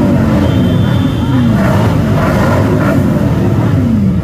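A crowd of motorcycles, many of them cruisers, idling and rumbling together close by, with single bikes now and then revving and dropping back to idle.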